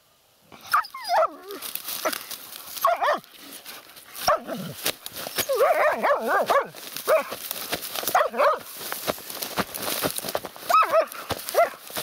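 Laika hunting dogs giving short, excited yelping barks again and again, starting about a second in, with crackling of dry reed stalks trampled underfoot.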